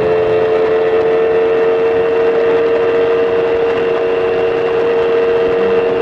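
Small motorcycle engine running at a steady cruising speed, a constant drone that holds one pitch throughout, with wind and road noise under it.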